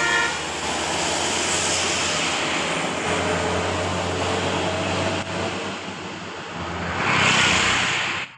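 A diesel bus going by with its engine running and a steady rush of road noise, just after its telolet horn tune ends at the very start; the noise swells near the end and cuts off suddenly.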